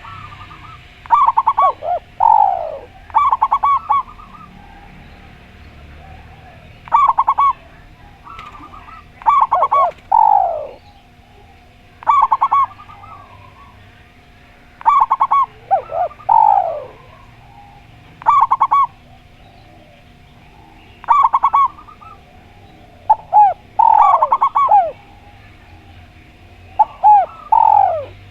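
Spotted dove and zebra dove cooing in repeated phrases, a burst every two to three seconds. Each burst mixes short pulsed coos with a coo that slides downward in pitch.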